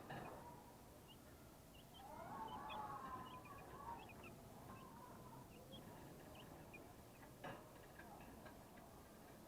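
Broiler chicks peeping faintly, with many short, high peeps scattered throughout. About two seconds in, a longer call rises in pitch and holds for a couple of seconds.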